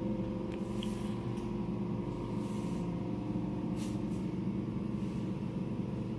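Steady machine hum of neonatal hospital equipment, with a few brief, soft hisses of air.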